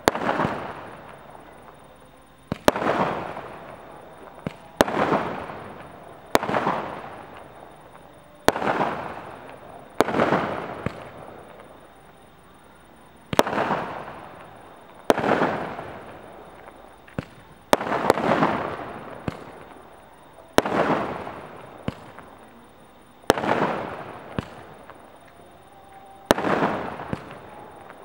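A 100-shot fireworks cake firing its shells one after another, about one every two seconds. Each shot is a sharp bang followed by a fading hiss.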